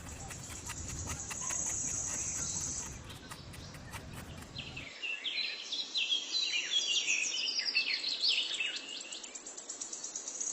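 Outdoor nature ambience: a steady high insect drone with a low rumble under it. About five seconds in the rumble cuts off and many small birds chirp rapidly.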